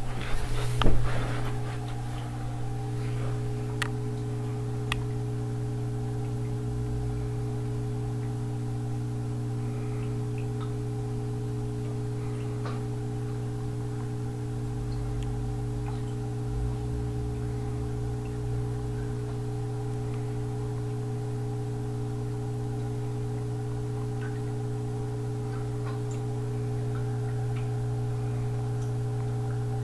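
Steady low hum of a reef aquarium's running equipment, with a few knocks in the first second or so.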